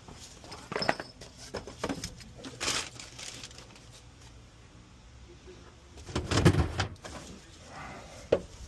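Scattered knocks and clicks of things being handled and moved, with a louder, longer bump of low rumbling noise about six seconds in.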